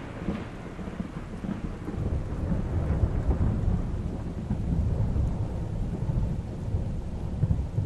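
Thunder rumbling low and rolling, swelling and easing a few times over steady rain. The fading tail of an earlier thunderclap is heard at the very start.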